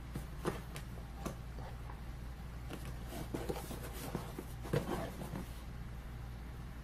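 A camera's retail box being handled: faint scattered taps and rustles, a few in a cluster around the middle, over a steady low hum.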